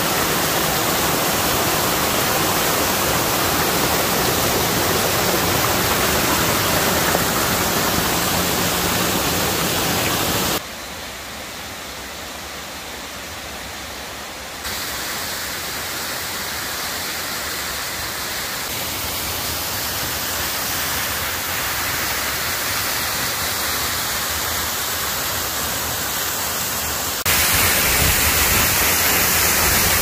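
Waterfall and the rocky cascade below it: a steady rush of falling water. Its level changes suddenly a few times, with a quieter stretch about a third of the way through and louder near the end.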